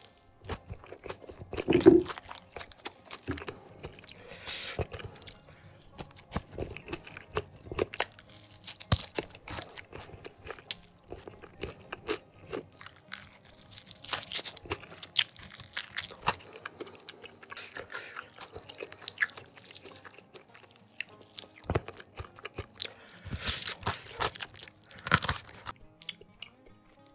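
Close-up chewing and crunching of crispy battered fried chicken and rice with sambal, eaten by hand, with repeated crunches throughout. The loudest bite comes about two seconds in, with another loud cluster near the end.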